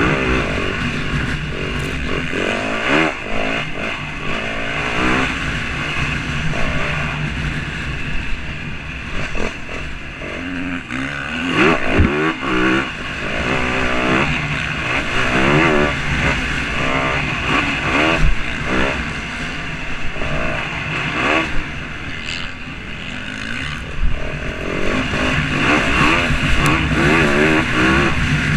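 Motor vehicle engines running and revving, the pitch rising and falling again and again as they accelerate and lift off.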